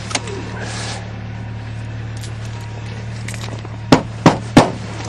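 A vehicle engine idling steadily with an even low hum, and three sharp clacks in quick succession near the end.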